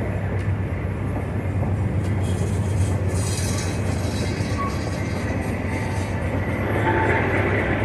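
Freight train rolling past: a steady low rumble of the cars and their wheels on the rails.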